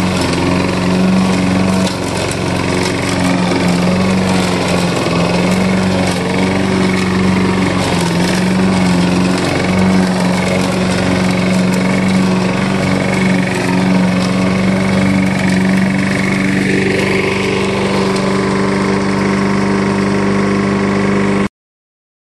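Walk-behind gas push mower's small engine running steadily at full throttle as it cuts through thick, weedy grass, its pitch dipping slightly now and then. The sound cuts off suddenly near the end.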